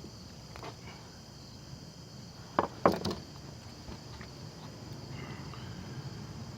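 Two short, sharp scrapes a little before halfway through, typical of a ferro rod (fire steel) being struck with a multitool's spine, over insects chirring steadily in the background.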